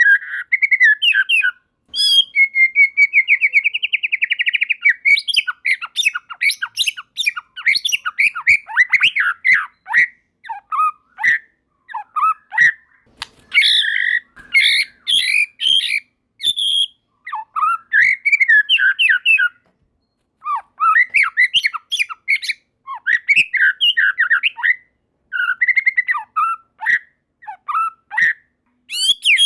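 White-rumped shama singing a long, varied song of quick whistled phrases, with a fast trill a couple of seconds in and a run of sharp clicking notes in the middle, broken by short pauses.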